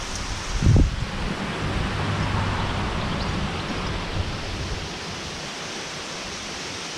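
Steady outdoor hiss with irregular low rumbling on the microphone and one louder low thump about a second in; the rumbling eases off after about five seconds.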